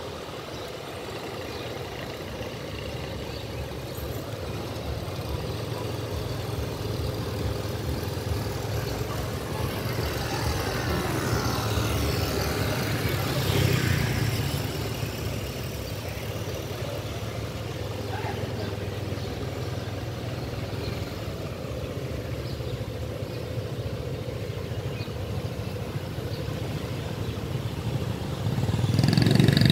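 Vehicle engines in street traffic: a steady engine hum, a vehicle passing and fading about fourteen seconds in, and a closer, louder engine near the end.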